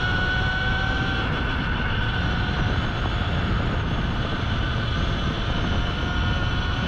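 Segway X260 electric dirt bike's motor whining while riding, with heavy wind rumble over it. The whine fades about a second in and comes back near the end.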